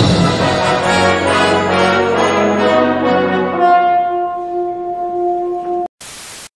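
Orchestral music led by brass, settling into a held chord that cuts off suddenly near the end, followed by a brief hiss.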